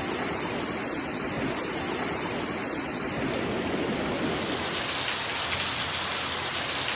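Heavy rain pouring down with running water, a steady rushing hiss that turns brighter and denser about four seconds in.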